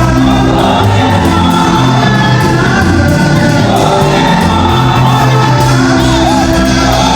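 Music with singing over a bass line that moves in held, stepped notes, with shouted or whooping voices in it.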